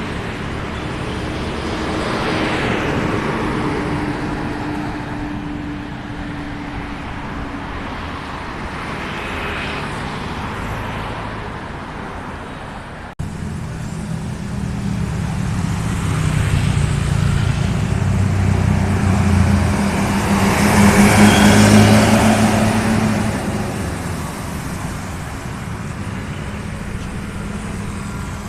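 Roadside traffic passing steadily. After a sudden break a little under halfway through, a heavy vehicle with a deep engine passes close, rising to its loudest about three quarters of the way in and then fading.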